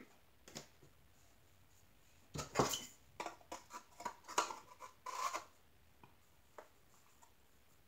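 Thin wooden panels of a flat-pack tray holder knocking and scraping against each other as they are handled and slotted together by hand: a light knock, then a busy run of clatters from about two and a half to five and a half seconds in, and one last small tick.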